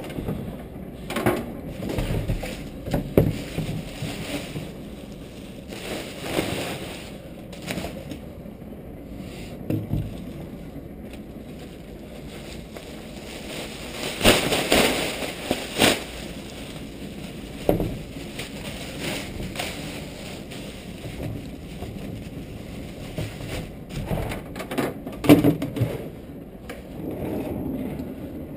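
Plastic trash can liner rustling as it is fitted into a wastebasket, among scattered knocks and bumps of handling. The loudest rustle comes about halfway through, and the sharpest knock near the end.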